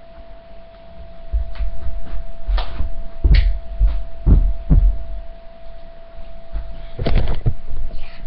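A run of dull, low thumps and bumps over a steady thin hum, with a cluster of knocks about a second before the end.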